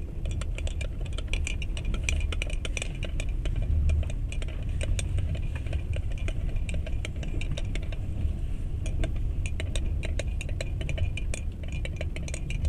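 Inside a moving passenger train carriage: a steady low rumble with frequent light rattling and clinking, thickest in the first few seconds and again later on.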